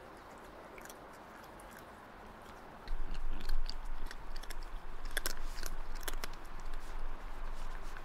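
A cat chewing snacks taken from a slow-feeder bowl, close up, starting about three seconds in, with sharp clicks through the chewing.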